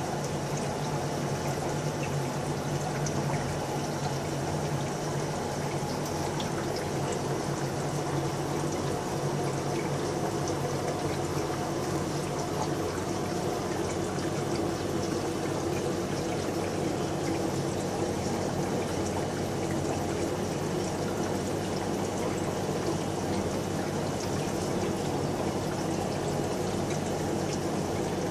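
Air-driven aquarium sponge filter, its stream of air bubbles steadily splashing and trickling at the water surface, with a steady low hum beneath.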